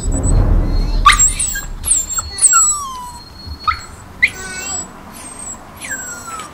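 Dogs in shelter kennels whining and yelping: a string of short, high-pitched cries, each sliding sharply up and then dropping away, about one every second.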